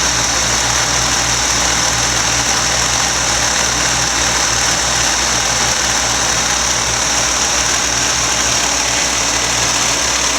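Vintage Hoover Concept One Power Drive upright vacuum cleaner, model U3109, running steadily with a high-pitched whir.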